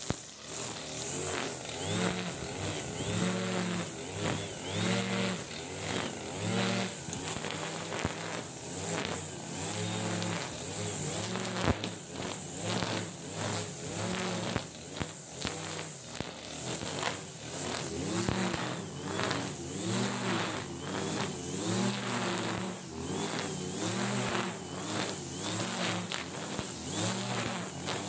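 Backpack petrol brush cutter with a nylon-line trimmer head running while cutting grass. The engine revs up and eases off again and again, roughly once a second, under a steady high whine.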